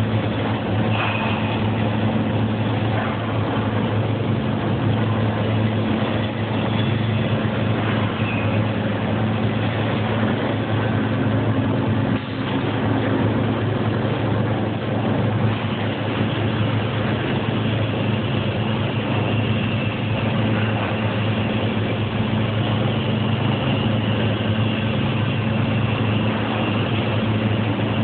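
CO2-shielded MIG welding arc crackling steadily as the final capping pass is laid, over a constant low hum. The crackle breaks off for a moment about twelve seconds in.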